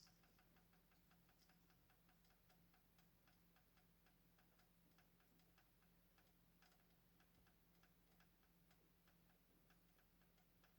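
Faint, quick, regular clicking, about four a second: a pet rat's rapid breathing, over a faint steady hum.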